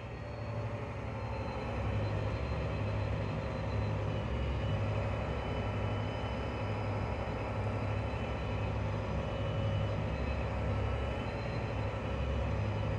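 John Deere 8260R tractor's six-cylinder diesel engine running steadily under heavy load while pulling a 4-metre subsoiler through compacted ground, heard from inside the cab. A faint steady high whine rides over the low engine rumble.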